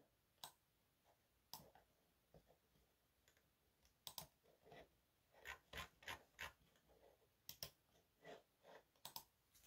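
Near silence broken by faint, scattered light clicks, about a dozen of them, some in quick pairs.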